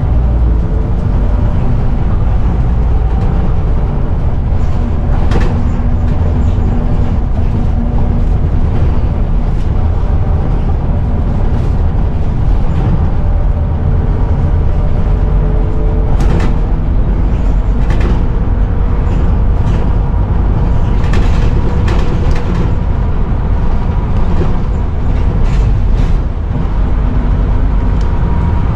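Inside a Scania Omnicity single-decker bus on the move: a steady heavy rumble from the driveline and road, with a thin steady whine over it from the knackered differential. A few short clicks and knocks come and go.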